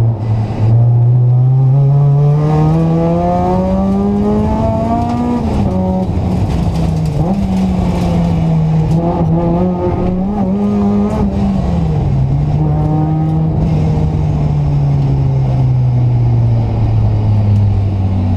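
Honda Civic hatchback's four-cylinder engine heard from inside the cabin on track: the revs climb steadily for about five seconds, drop sharply, hold at mid revs with small dips, then fall slowly through the last six seconds as the car backs off. Road and wind noise run underneath.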